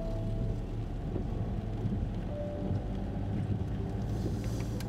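Steady low rumble of a van driving on wet roads, heard from inside the cab, with soft background music over it.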